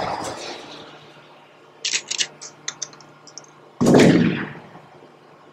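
Logo-intro sound effects: a hit that fades at the start, a quick run of sharp clicks, then a loud gunshot-like bang about four seconds in that fades away over a low steady drone.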